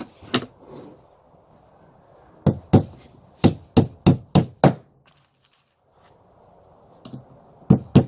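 Hammer driving a nail into a wooden piece: one sharp strike, then a run of seven quick taps starting about two and a half seconds in, and two more near the end.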